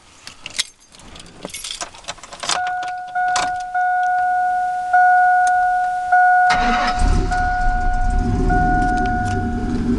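Keys jingling and a few clicks, then the pickup's dashboard warning chime dinging steadily in two tones. About six and a half seconds in, the Chevy truck's engine starts and runs through a Magnaflow muffler with its fiberglass packing removed; the exhaust is not that loud because water is still inside the muffler.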